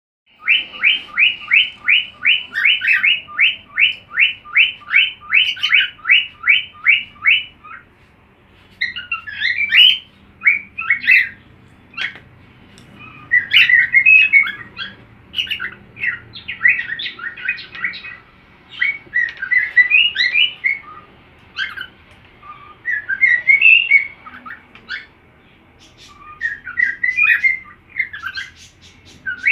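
Cockatiel song: a fast, even run of about three to four chirps a second for the first seven seconds or so, then warbling whistled phrases in bursts with short pauses between them.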